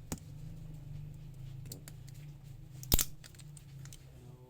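Small hand-tool clicks against a smartphone while its battery is being pried out: a light click at the start and one loud, sharp click about three seconds in, over a steady low hum.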